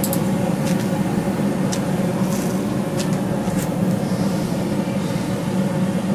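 Steady low mechanical hum of running machinery, with a few faint short ticks.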